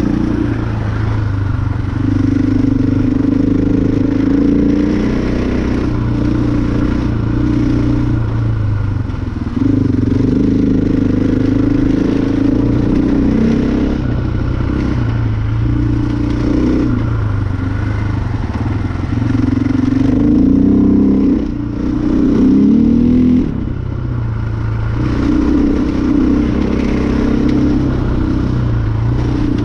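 The single-cylinder four-stroke engine of a KTM 500 EXC enduro motorcycle running under load while ridden, its note rising and falling with the throttle. The throttle is eased off briefly about 9 seconds in, and twice more past the 20-second mark.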